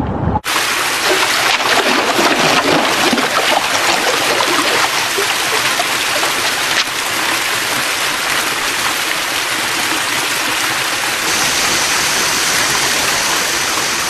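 Fast-flowing river water rushing steadily, a dense even hiss with no break, its tone shifting slightly twice.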